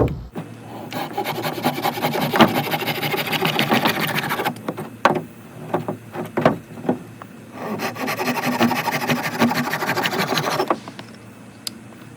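Dogfennel hand-drill spindle spun between the palms on a tulip poplar fireboard, a fast wooden rubbing. It comes in two spells of about four and three seconds, with a few knocks in the pause between.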